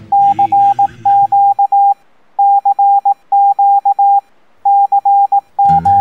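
Electronic emergency-alert attention tone: a single mid-pitched beep sounding in six clusters of long and short beeps. The TV programme's own sound fades out in the first second and a half, and strummed guitar music comes in near the end.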